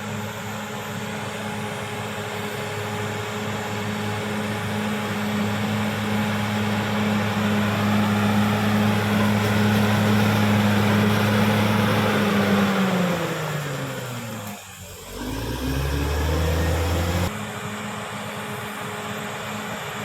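Caterpillar D6R XL bulldozer's diesel engine running steadily under load, growing louder with added grinding noise. About thirteen seconds in the engine note sags lower in pitch, dips briefly, runs low for a couple of seconds, then cuts back suddenly to the steady running sound heard at the start.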